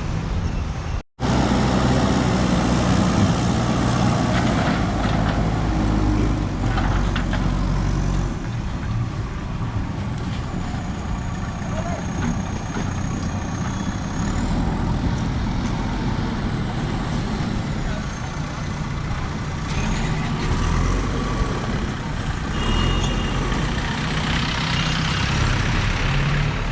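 Highway traffic: trucks and other motor vehicles running past, with a steady low engine rumble and road noise.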